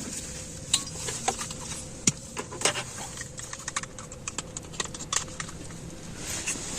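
Irregular sharp clicks and crackles, a few louder than the rest, over a faint steady low hum.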